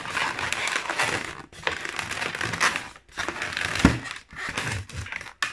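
Inflated latex modelling balloons (long twisting balloons) rubbing against each other and the hands as they are pushed and twisted together, in stretches with short pauses. A louder thump about four seconds in.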